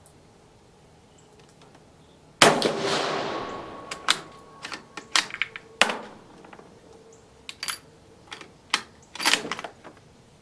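One rifle shot from an 8mm-converted Carcano M38 cavalry carbine firing a cast-bullet load, its report echoing away over a second or two. Then a string of sharp metallic clicks and clacks as the bolt is worked and the rifle reloaded.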